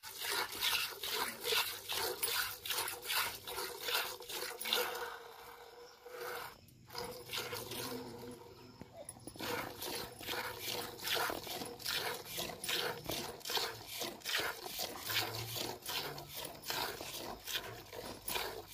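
Hand-milking a cow: jets of milk squirting into a steel pail in a steady rhythm, about three squirts a second, slackening briefly in the middle.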